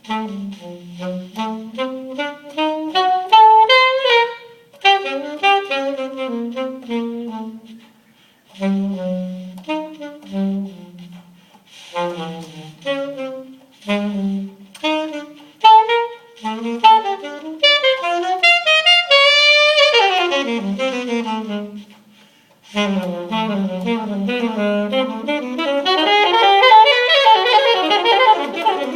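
Saxophone playing an improvised jazz solo: a single melodic line of phrases with short breaths between them, breaking into fast runs that climb and fall in the second half.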